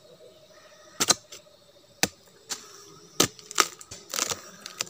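A handful of sharp, irregular cracks and snaps, typical of rotten wood being broken apart by hand at a stingless bee nest, with a faint steady hum in the first half.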